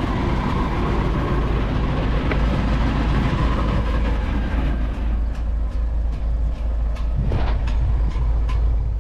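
Farm machinery running with a steady, loud low rumble, joined by scattered sharp clicks in the second half.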